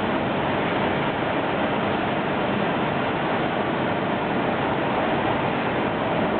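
Steady, even rushing noise of a running surface grinder, with no changes in pitch or level.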